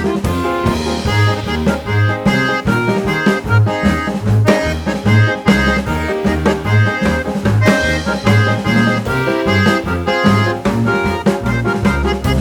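Background music: an instrumental with drums keeping a steady beat under a moving bass line.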